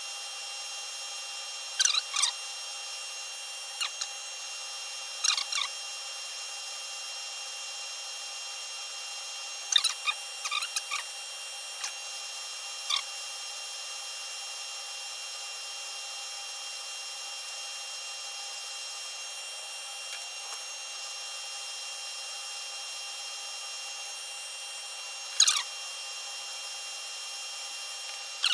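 Metal lathe turning slowly with a steady hum while a hand lap charged with aluminum oxide in oil is worked along a spinning sine-plate roll, giving occasional short squeaks and clicks.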